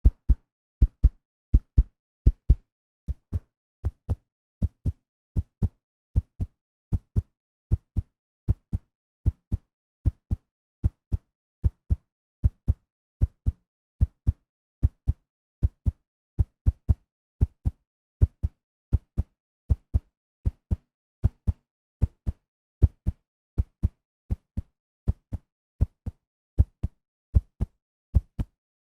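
Human heartbeat sound effect: a steady lub-dub, each beat a pair of short low thumps, repeating a little more than once a second.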